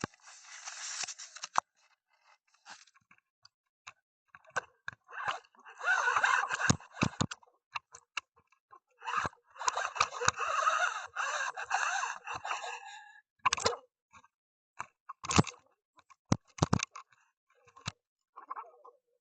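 Irregular crackling and scraping noise with scattered sharp clicks, picked up by an underwater camera's microphone.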